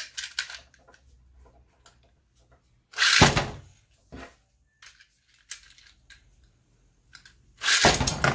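Two Beyblade Metal Fight tops launched one after the other into a plastic stadium. There is a loud zip of a launcher with the top hitting the bowl about three seconds in, and another near the end. Faint clicks of the spinning top in the bowl come in between.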